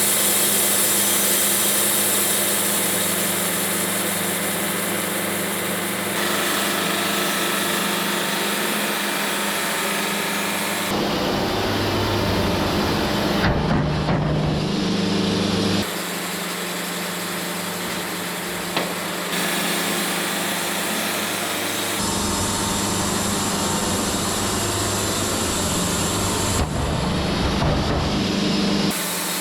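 Portable band sawmill running, its engine droning steadily as the blade cuts through a cherry log. The sound shifts abruptly several times.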